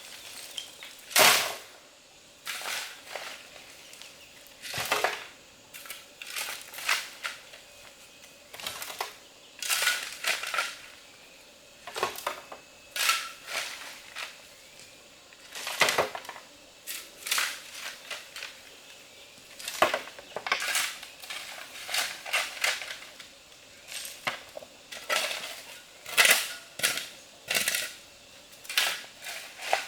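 A long series of sharp knocks and clicks at irregular spacing, roughly one or two a second.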